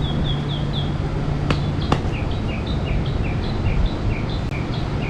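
A songbird singing a rapid series of short, high, falling notes, several a second, alternating between two pitches. Under it a low steady hum stops about two seconds in.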